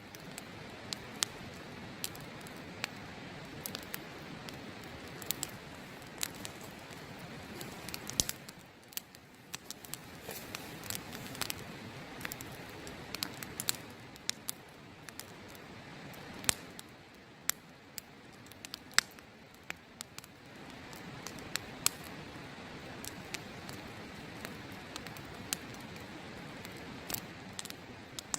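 Wood campfire crackling, with many sharp irregular pops and snaps, over a steady rushing noise of a nearby river.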